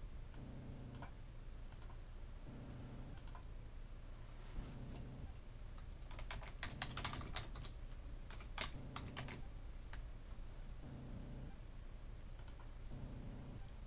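Typing on a computer keyboard: a quick run of keystrokes lasting about three seconds, starting about six seconds in, with a few single clicks before and after.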